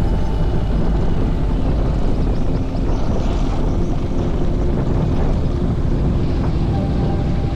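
Steady low rumble of wind buffeting the microphone and motorbike engine noise while riding, with no distinct events.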